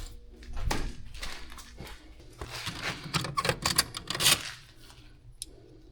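Small metal tools clinking and rattling as they are handled, a quick irregular run of clicks and clatter lasting about four seconds before it stops.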